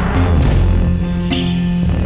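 Background music: sustained notes over a low bass, with a sharp hit a little past halfway.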